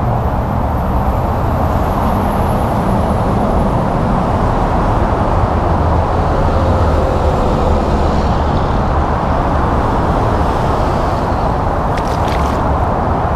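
Steady loud rushing noise with no break or change, with a few faint splashes near the end as hands plunge into the shallow water.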